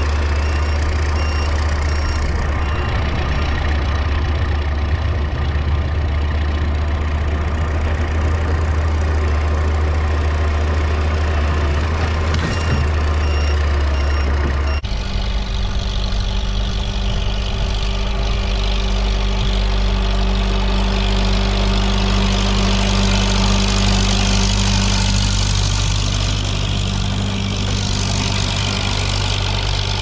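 A Gehl skid steer's engine runs steadily as it pushes snow. About halfway through, the sound switches abruptly to a Case 830 tractor working a snowblower: a different steady engine hum with a high hiss over it.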